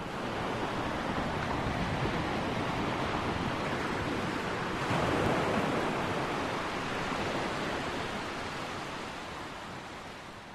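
A steady rushing noise with a sound like surf. It swells about five seconds in, then slowly fades away toward the end.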